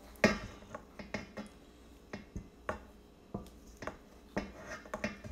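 A spatula knocking and scraping against the mixing bowl while scooping out sticky dough: a dozen or so irregular clicks and knocks, the loudest just after the start.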